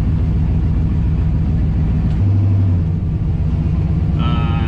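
Turbocharged 5.3-litre V8 running steadily as the car is driven, heard from inside the car. The engine note swells briefly about two seconds in.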